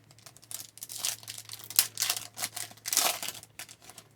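Trading card pack wrapper being torn open and crinkled by hand, in a run of uneven crackles with two louder crinkles in the middle and near the end.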